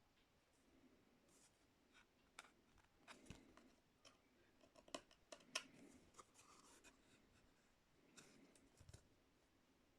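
Faint clicking and scraping of wooden inset-puzzle pieces being handled and fitted into the frame board, with a few sharper taps about halfway through.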